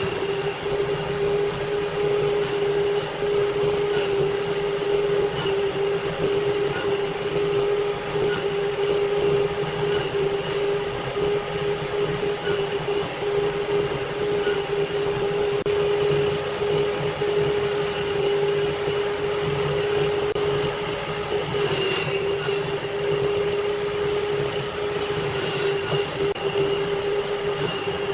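Electric woodworking power tool motor running steadily at one constant pitch, with scattered sharp ticks and knocks, a few of them louder about 22 and 26 seconds in.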